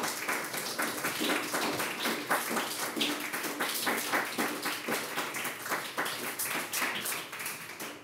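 Audience applauding, many hands clapping at once, tailing off near the end.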